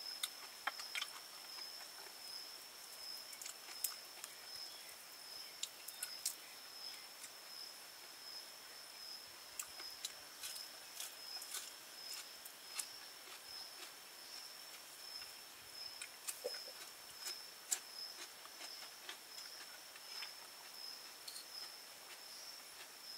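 Scattered sharp clicks and small sucking sounds as cooked snail shells are picked up and the meat is sucked out, over a steady high-pitched insect drone.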